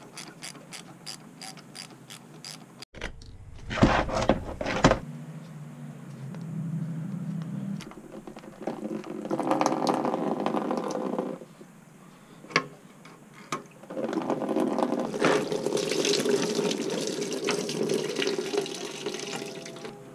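Engine coolant draining from a 1980 Honda CX500's cooling system and splashing into a plastic tub, pouring in two long spells with a short break between. Rapid light clicking of a hand tool in the first few seconds.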